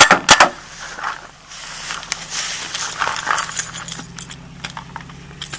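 Dodge Ram pickup's engine running with a steady low hum from about a second and a half in, under sharp knocks near the start and small clicks and rustling of footsteps in grass.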